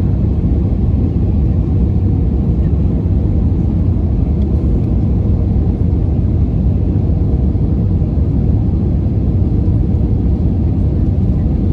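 Steady low rumble of jet airliner cabin noise, engines and airflow heard from a window seat over the wing during the descent to land, with a faint steady hum above it.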